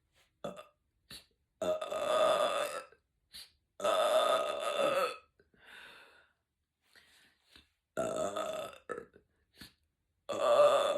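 A woman's long burps, four of them, each lasting about a second and spaced a few seconds apart, brought up by gas from carbonated sparkling water.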